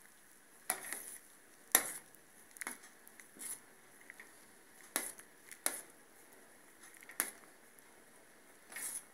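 Metal spoon knocking and scraping against a metal pot while skimming foam off boiling soup: about eight short clinks at uneven intervals, the loudest nearly two seconds in.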